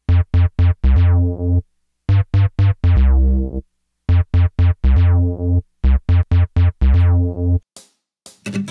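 A short synthesizer keyboard jingle: four phrases, each a run of quick short notes ending on a longer held note, with brief gaps between them. Near the end come a few sharp clicks.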